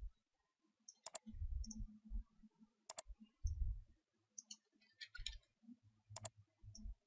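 Computer mouse clicking: three quick double clicks about two seconds apart, with soft low thuds of the mouse and desk between them.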